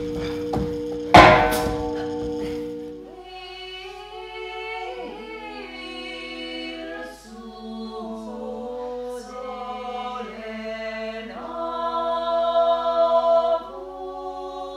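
A held droning chord with a loud crash about a second in. Then a small group of voices sings slow, held chords with no instruments, swelling louder near the end before dropping back.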